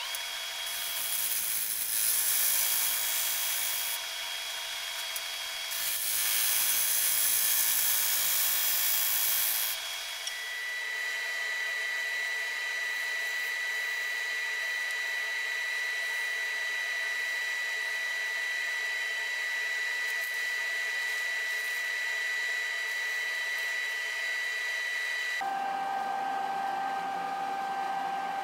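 Wood lathe running with a turning tool cutting the spinning elm disc: a loud hissing scrape comes in three bursts over the first ten seconds, over the lathe's steady whine. After that the whine goes on steadily with less hiss while sandpaper is held to the spinning face, and a few seconds before the end it changes abruptly to a lower note.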